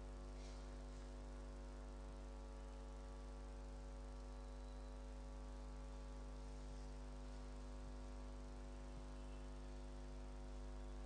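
Steady electrical mains hum and buzz, faint, with many overtones and no change in level.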